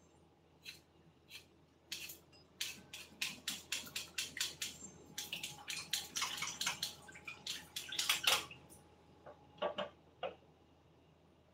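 Kitchen clatter at the sink: a run of quick taps, knocks and clinks of utensils and dishes as vegetables are prepared, busiest in the middle and thinning out to a few knocks near the end.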